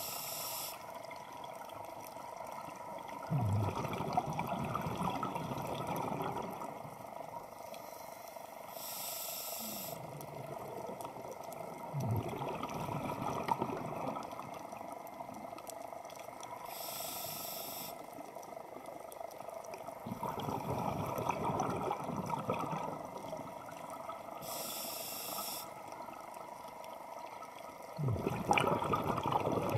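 Scuba diver breathing through a regulator underwater. A short hiss on each inhale, about every eight seconds, is followed by a longer rush of exhaled bubbles, four breaths in all.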